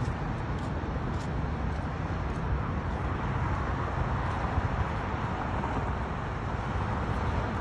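Steady highway traffic noise: a continuous, even hum of cars with no single vehicle standing out.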